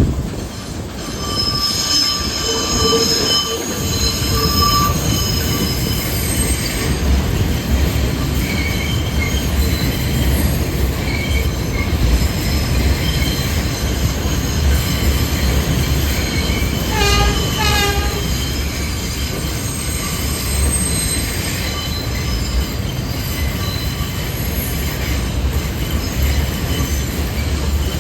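New York City Subway train of R142 cars running through the station with a steady rumble of wheels on rail, its wheels squealing in high tones, most clearly a few seconds in.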